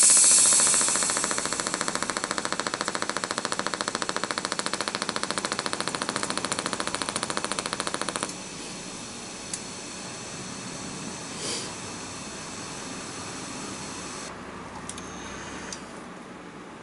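A machine running with a loud, fast, even rattling buzz that cuts off suddenly about eight seconds in, followed by a quieter steady hiss with a few faint clicks.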